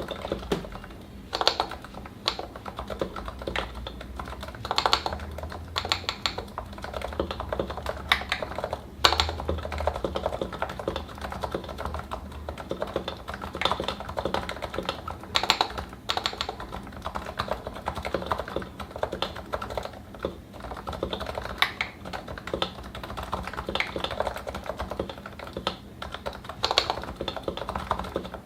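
Continuous typing on a Realforce 87u Topre keyboard with 55 g electrostatic-capacitive switches, lubed with Tribosys 3204 and fitted with Novatouch sliders, in a Norbauer aftermarket case with GMK keycaps. A steady stream of keystrokes, with a few louder strokes standing out now and then.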